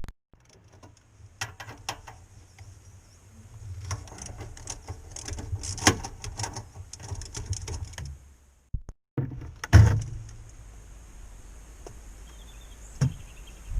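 Hands-on mechanical work sounds: scattered clicks and knocks with a heavy thump about ten seconds in and a smaller one near the end, over a low steady hum.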